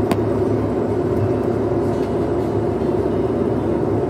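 Steady jet airliner engine and cabin noise heard from inside the cabin while the plane is on the ground, with a single sharp click just after it begins.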